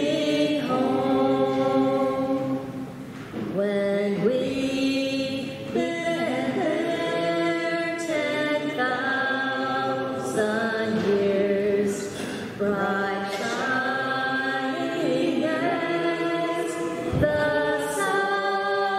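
Choir singing a slow hymn, apparently unaccompanied, in long held notes that change pitch every second or two.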